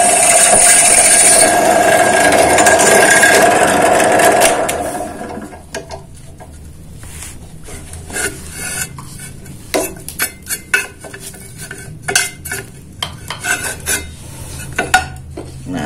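Drill press bit cutting through a steel hollow tube clamped in a vise: a loud, steady cutting noise with a high ring in it that stops about four to five seconds in. After it, a run of light metallic clinks and knocks as the tube is handled and shifted in the steel vise.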